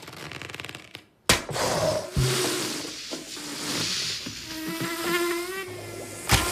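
Sound effects of an animated short: a sharp hit about a second in, then a buzzing, hissing stretch with a few short rising tones, and another sharp hit near the end.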